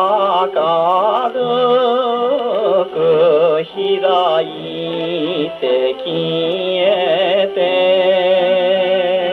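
Columbia G-241 portable wind-up gramophone playing a 1953 78 rpm record: a man's voice singing a song with a wide, wavering vibrato. The sound is thin, with no deep bass and nothing above the upper treble, as from an acoustic soundbox.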